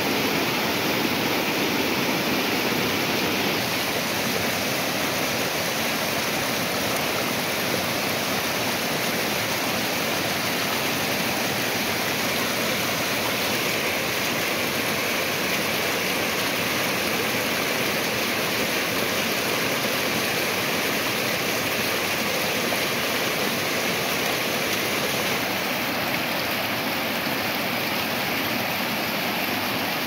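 A small mountain waterfall and cascading stream: a steady rush of falling water, its tone shifting slightly about four seconds in and again near the end.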